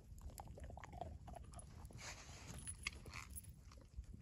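A dog chewing and eating food off the ground, faint, with scattered small clicks.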